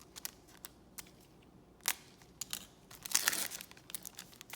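Trading cards being flipped through by hand: a scatter of light card clicks and snaps, with a longer crinkling rustle about three seconds in.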